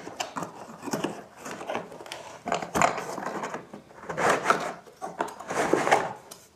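Cardboard box being opened by hand: tape peeled off the end flap, the flap pulled open and a plastic spray gun slid out. Cardboard and plastic rub and scrape in several irregular bursts.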